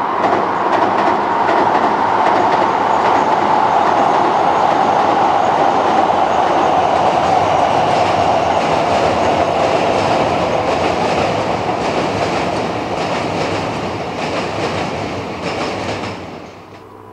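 Keikyu electric train crossing a steel truss railway bridge: a loud, steady rumble with a tone that slowly falls in pitch, and rhythmic wheel clacks in the second half. The sound cuts off abruptly near the end.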